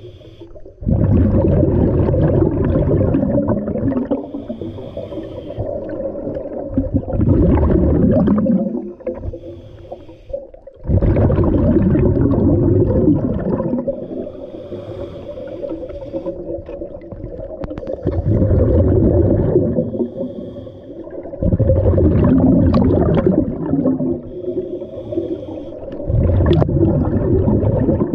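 Scuba diver breathing through a regulator underwater: about six loud bubbling exhalations, each a few seconds long, alternating with the thin hiss of the regulator on each inhale.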